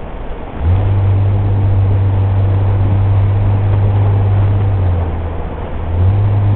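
Nissan Elgrand minivan heard from inside the cabin while driving: a steady hiss of road noise, joined sharply about a second in by a low steady engine drone that eases off briefly near the end and then comes back.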